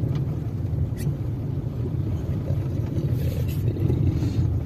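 Car cabin noise while driving slowly over a wet cobblestone street: a steady low rumble of engine and tyres, with a few faint ticks.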